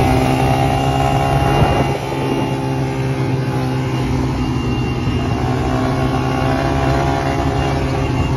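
A motor vehicle's engine running loud and close at a steady speed, its pitch holding level, with a slight drop in loudness about two seconds in.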